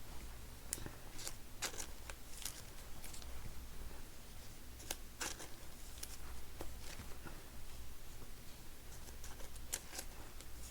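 Trading cards and plastic card sleeves being handled: soft, scattered clicks and rustles, about a dozen in all, over a steady low hum.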